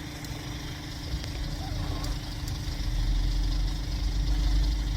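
Steady low engine rumble with a constant hum, and a faint seagull call about two seconds in.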